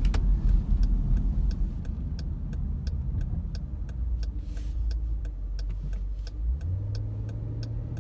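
Jeep Grand Cherokee SRT cabin noise on a gentle right turn under light throttle: low engine and road rumble with a steady ticking about three times a second. A steady low hum joins near the end. The grinding noise that the owner suspects is a CV joint or transfer case does not occur on this slower turn.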